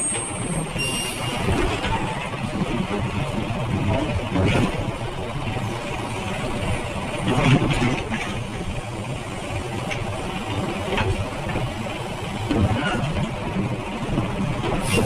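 Automated side-loader refuse truck's arm gripping a plastic wheeled trash cart, lifting and tipping it into the hopper and setting it back down, over the diesel engine running. Several knocks of the cart against the hopper, the loudest about seven and a half seconds in as the cart is tipped.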